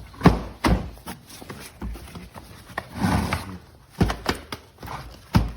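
Shop vacuum parts and attachments being handled and set down: a series of knocks and clunks, the loudest near the start and near the end, with a short rustle about three seconds in.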